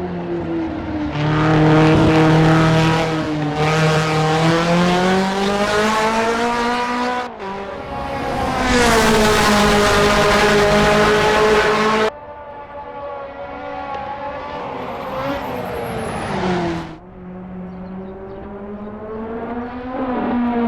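Racing car engines at full throttle, loud and high-revving. The pitch swings up and down through the revs and falls off abruptly three times as the throttle is lifted or a gear is changed.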